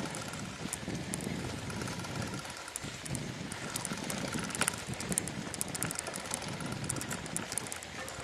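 Bicycle ridden over a bumpy grass towpath: a steady rough rumble from the tyres with scattered, irregular light clicks and rattles from the bike.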